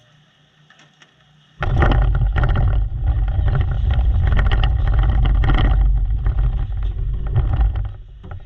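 Loud race-car engine noise starts suddenly about a second and a half in, runs for about six seconds, and drops away near the end.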